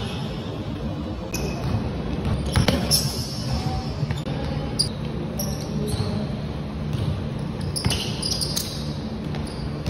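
Basketball bouncing on a wooden gym floor during one-on-one play: irregular dribble thuds and impacts, echoing in a large hall.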